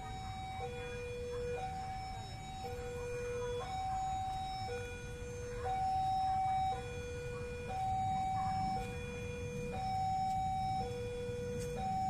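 Railway level-crossing warning alarm sounding at a closed crossing: a two-tone electronic chime alternating a higher and a lower tone, each held about a second. Under it is a low rumble from waiting motorcycle engines idling.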